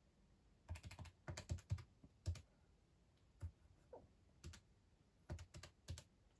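Buttons of a Casio calculator being pressed: quiet, sharp clicks in short quick runs and single taps with pauses between, about a dozen and a half presses.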